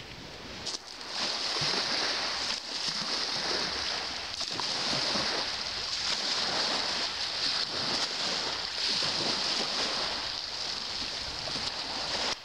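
Small waves lapping and washing onto a gravel beach, a steady rushing wash that comes in about a second in.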